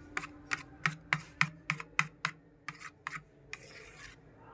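Wire balloon whisk beating thick curd batter in a stainless steel plate: its wires click against the metal about three times a second, then a longer scrape near the end, as the batter is whisked smooth.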